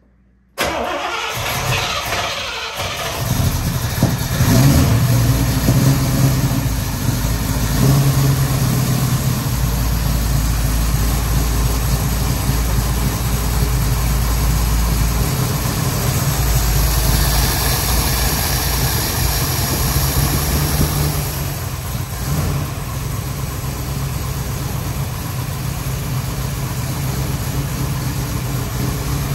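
Carbureted Chevrolet V8 in a Chevy Nova being test-fired after a top-end rebuild: it cranks, catches within the first few seconds, then settles into a steady, slightly high idle that still needs timing and tuning.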